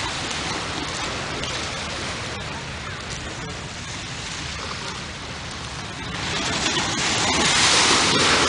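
Steady hiss of small waves washing on a beach, with a low wind rumble on the microphone. It swells louder from about six seconds in.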